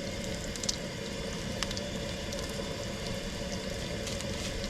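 Bread dough frying in hot grease in a pan: a steady sizzle with a few sharp pops and crackles of spitting grease.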